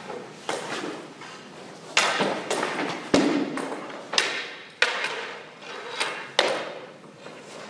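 A string of sharp knocks and thuds, about ten in all at uneven intervals, each trailing a short echo: hockey gear striking the rink surface and boards.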